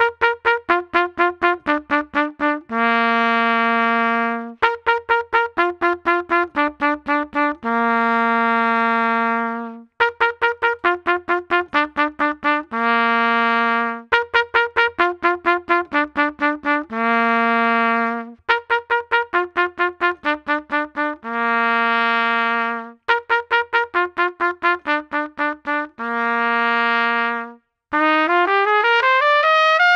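LOTUS Universal Max trumpet, fitted with its bronze tuning slide and lightweight top valve caps, playing the same short phrase several times: a run of quick tongued notes stepping downward, each run ending on a long held note. Near the end comes one smooth upward slur in pitch.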